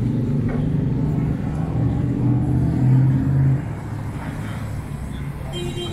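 A motor vehicle's engine running with a steady low hum, which drops away suddenly a little past halfway, leaving quieter street noise.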